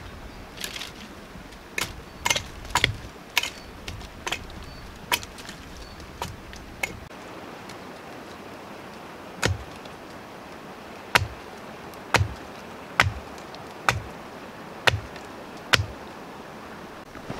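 Hatchet chopping a stick of wood, each blow a sharp knock: quick, uneven strokes over the first seven seconds, then after a short pause about one stroke a second.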